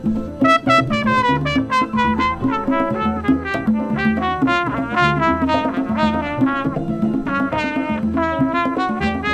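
Flugelhorn playing a quick, running Latin jazz solo line, many short notes moving up and down. It is backed by upright double bass, congas and keyboard.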